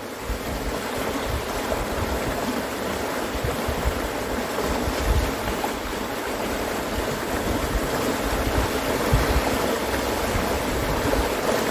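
Fast river water rushing over rapids: a steady, even rush of flowing water.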